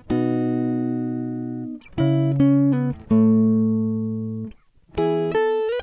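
Instrumental intro music: a plucked-string tune of a few notes and chords, each struck and left ringing for about a second, with short gaps between them and a small upward slide near the end.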